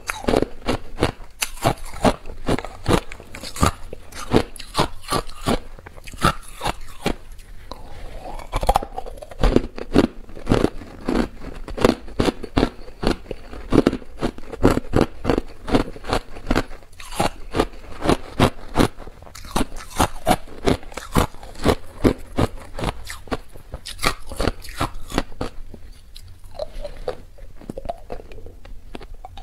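Hard clear ice being bitten and chewed right at a lapel microphone: a rapid, continuous run of sharp crunches, several a second, with a short lull near the end.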